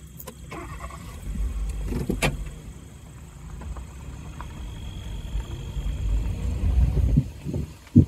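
Low engine rumble from a vehicle, swelling a couple of times, with a few sharp clicks or knocks, the loudest about two seconds in.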